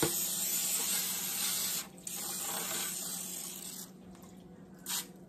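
Aerosol can of butter-flavored cooking spray hissing as it greases disposable aluminum foil loaf pans: a spray of about two seconds, a short break, a second spray of about two seconds, then a brief puff near the end.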